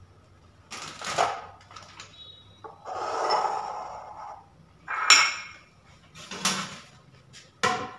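Ceramic bowls and a metal whisk being handled on a wooden countertop: a few knocks and clinks, some of them ringing briefly, and a longer scraping slide about three seconds in.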